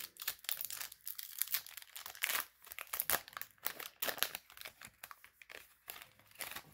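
Pokémon booster pack's foil wrapper crinkling and tearing as it is ripped open and the cards are slid out of it: an irregular run of sharp crackles.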